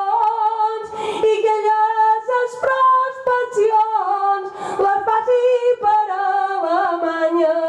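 A woman singing Mallorcan glosa verse unaccompanied into a handheld microphone, in long held notes, ending on a long low note.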